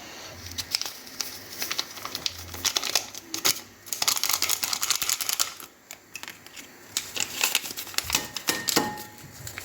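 A sachet of baking powder being torn open and crinkled, a long run of irregular sharp crackles with a denser stretch in the middle.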